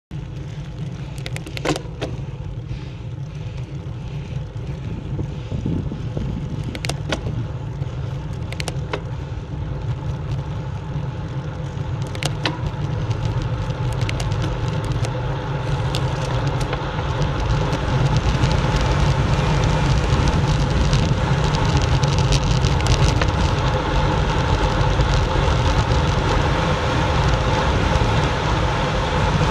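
Wind buffeting an action camera's microphone, together with bicycle tyre noise on tarmac, during a fast downhill; the low rushing grows steadily louder as speed builds, with a few sharp clicks and rattles in the first half.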